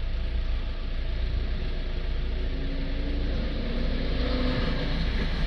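Renault Trafic diesel engine idling steadily, heard from inside the cab, with a low hum and even noise throughout.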